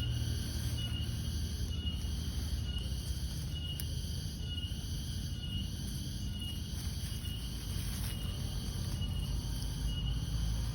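A cricket chirping in short, evenly spaced pulses, about one or two a second, over a steady low rumble.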